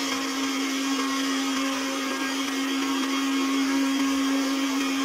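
Electric countertop blender's motor running steadily at speed with an even hum, the plastic jar holding a little liquid.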